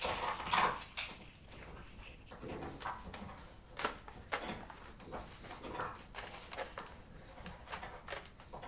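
Irregular light clicks and rustles of a plastic cycling helmet and sports sunglasses being handled and adjusted on the head.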